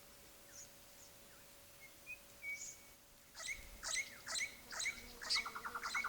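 Orange-bellied parrots calling. A few faint chirps come first. From about three seconds in there is a run of sharp, high calls at roughly two a second, ending in a rapid buzzy chatter.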